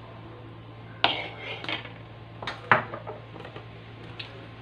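Metal spoon clinking and knocking against a wooden bowl as it is put down among other kitchen items: a handful of sharp knocks, the loudest about a second in and just before three seconds.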